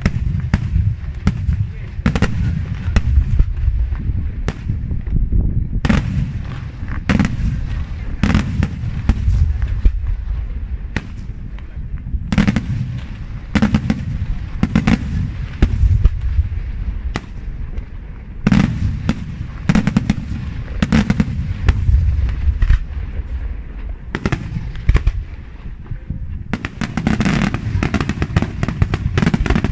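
Daytime aerial fireworks shells bursting overhead: a rapid string of sharp bangs, about one or two a second, over a low rumbling echo, coming thicker near the end.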